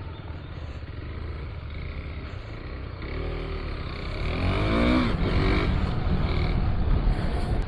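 Motorcycle engine on the move, revving up through rising pitch a few times about three to five seconds in and getting louder, over a steady low rumble of wind and road noise.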